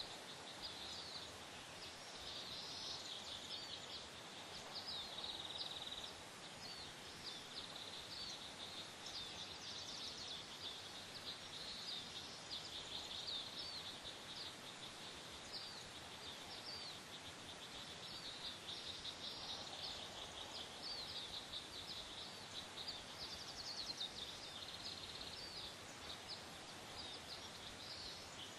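Faint outdoor bird chatter: many short, high chirps follow one another without a break, over a steady hiss.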